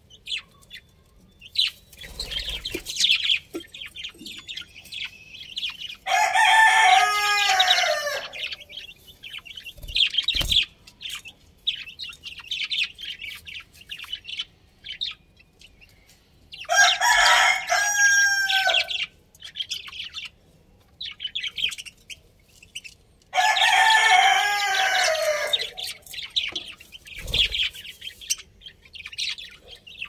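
A rooster crowing three times, each crow about two and a half seconds long, over a steady scatter of high chirping and chattering from budgerigars.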